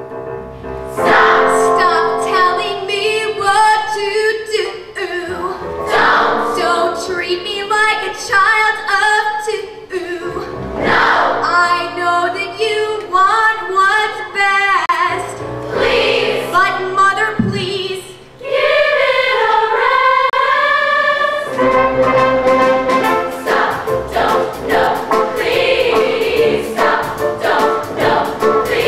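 A choir singing: moving phrases at first, then a long held chord over the last several seconds.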